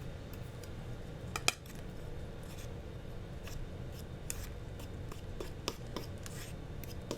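Irregular light clicks, taps and short scrapes of kitchen food preparation, with one sharper click about one and a half seconds in, over a steady low hum.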